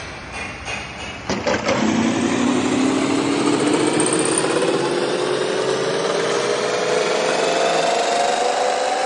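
Metal lathe machining metal: after a few light knocks, a loud steady machining sound starts suddenly about a second and a half in, its pitch rising slowly and evenly.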